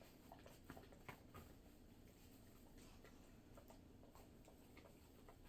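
Near silence: room tone with a few faint clicks in the first second and a half.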